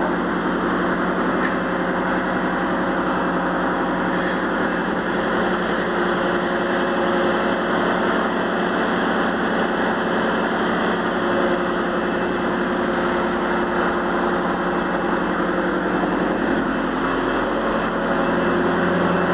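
A machine running steadily, an even hum with several fixed tones that does not change throughout.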